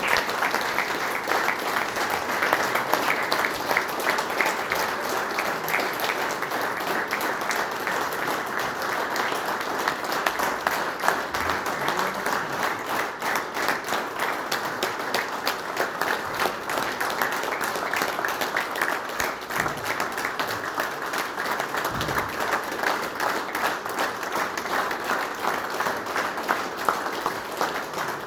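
Sustained applause from a large audience of convention delegates, starting abruptly and holding steady, acclaiming a just-announced unanimous election.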